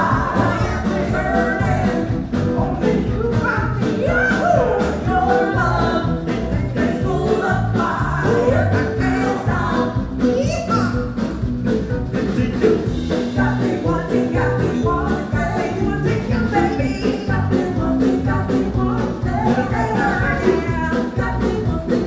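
A live band playing with singers: sung vocals over electric bass, electric guitar and keyboards, with a steady driving beat.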